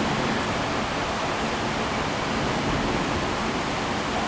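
Steady factory-floor din of a truck assembly line: an even rushing noise of machinery and ventilation, with no distinct knocks or tools standing out.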